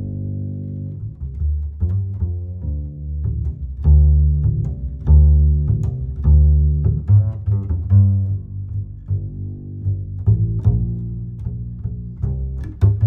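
Background music: a low string bass line of short plucked notes, one after another.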